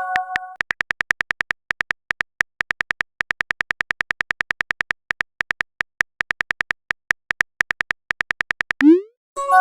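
Rapid run of short electronic typing clicks, about five a second with small pauses, from a chat-app keyboard sound effect as a message is typed out. It opens on the tail of a chime and ends with a rising swoosh as the message is sent.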